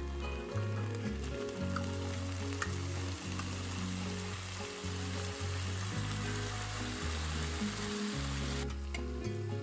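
Sliced onions sizzling in hot olive oil in a frying pan as canned tuna and tomato sauce are tipped in. The steady sizzle cuts off suddenly about a second before the end.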